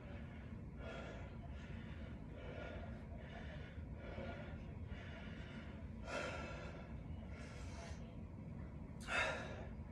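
A man breathing hard after a set of ten goblet squats, one breath about every second, with a louder, sharper breath near the end.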